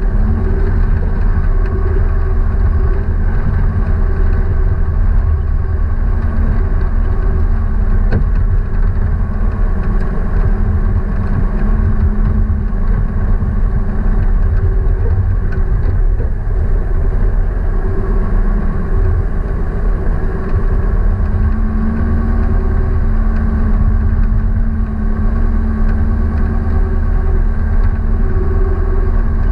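A motor vehicle's engine running steadily under a heavy low rumble, its pitch stepping up slightly about two-thirds of the way through.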